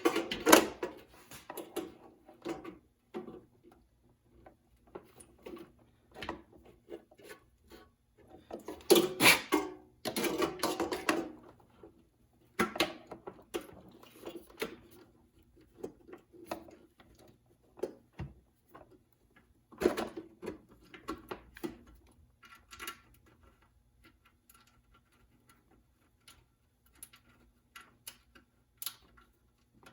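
Hands working with small hardware and tools: scattered clicks, taps and light rattles, with busier bursts of clattering about nine to eleven seconds in and again around twenty seconds.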